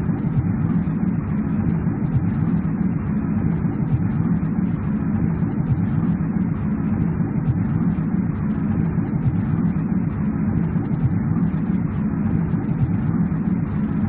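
Steady, low rumbling noise of a snowy-forest sleep ambience, unchanging and without distinct events.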